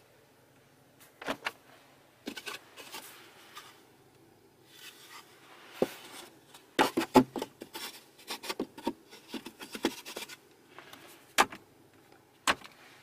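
Centre-console armrest storage bin being opened and handled by hand: irregular clicks, knocks and rubbing of the lid and its contents, the busiest cluster in the middle, with a sharp knock near the end as the lid comes down. A faint steady hum sits underneath.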